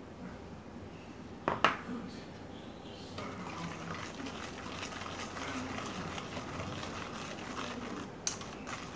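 A wire whisk scraping and clinking against a stainless steel bowl, beating melted butter into brown sugar with quick, continuous strokes that start about three seconds in. Before that, one sharp metal clank about a second and a half in.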